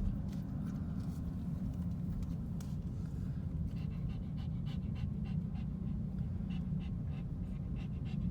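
A dog panting in quick, even breaths over the steady low rumble of a car on the road.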